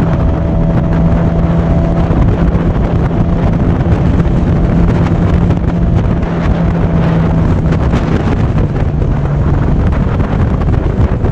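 Small boat's outboard motor running steadily at trolling speed, with water rushing along the hull and wind buffeting the microphone; the motor's steady hum fades near the end.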